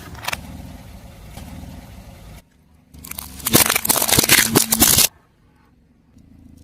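Car tyre rolling over and crushing brittle objects: about two seconds of loud, dense crackling and snapping. Before it comes low, steady rolling noise.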